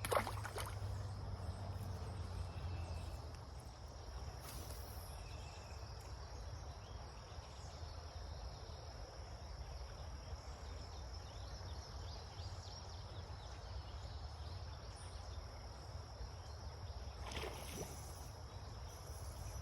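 Insects droning in one steady high-pitched tone over a low, even outdoor rumble, with a brief sharp knock right at the start and another near the end.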